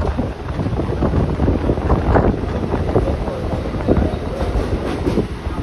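Train running on the rails, heard from the moving coach, with wind buffeting the microphone over a steady low rumble.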